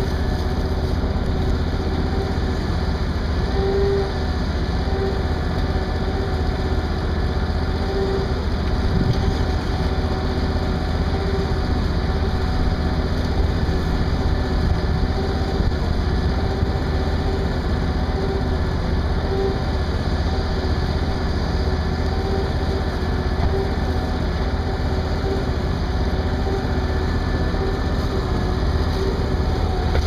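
John Deere combine harvesting corn: a steady mechanical drone from its engine and threshing machinery, with a constant hum that holds one pitch.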